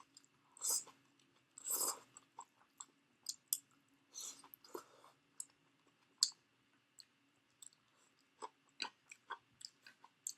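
Close-miked chewing of stir-fried napa cabbage: wet crunches and small mouth clicks at an uneven pace, with a few louder, longer crunches in the first five seconds.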